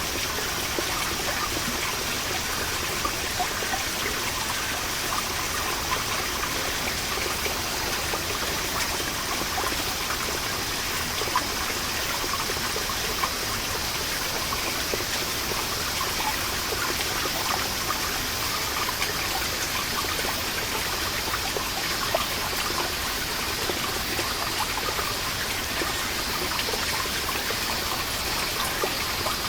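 Water seeping from a moss-covered wall and falling in many small drops: a dense, steady patter of dripping and trickling. A steady high-pitched drone of cicadas sounds behind it.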